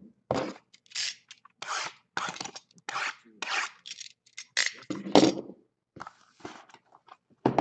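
Shrink-wrapped cardboard card boxes being handled and stacked: a string of irregular scraping and rubbing sounds as the boxes slide against each other and the table mat.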